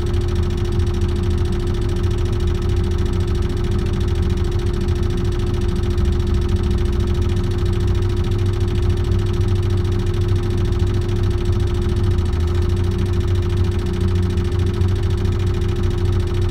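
Diesel engine of a Liebherr LTM 1160-5.2 mobile crane running steadily, heard from inside the crane's cab: a constant low drone with an even hum above it.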